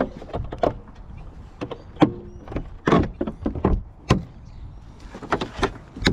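Jeep Wrangler door being handled: a string of irregular clicks and knocks, the loudest about two and four seconds in.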